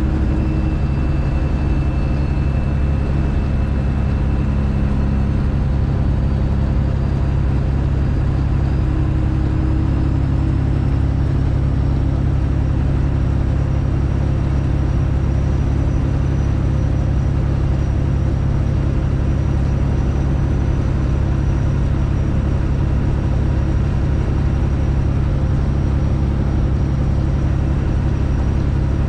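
Straight-piped Detroit Diesel engine of a Freightliner Classic XL semi truck running loud and steady at a constant pace, with no revving or gear changes.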